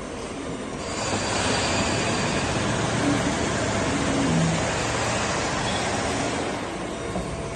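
Sanco SHM 11025R CNC horizontal boring machine running: a steady mechanical noise that grows louder about a second in and eases slightly near the end, with faint tones stepping in pitch in the middle.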